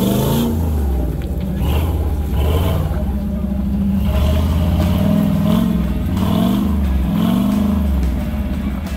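Off-road 4x4's engine revving up and falling back several times in a row, over a steady low rumble.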